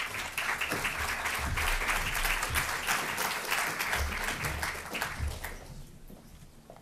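Audience applauding, the clapping dying away about five and a half seconds in.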